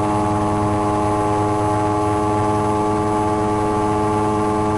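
Mosquito XE ultralight helicopter's engine and rotor running steadily under climb power, a constant drone heard from the cockpit.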